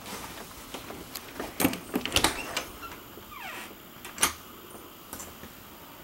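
A wooden interior door being handled and pushed open: a cluster of sharp latch and knob clicks and knocks, a brief falling squeak about three and a half seconds in, and one louder knock after it.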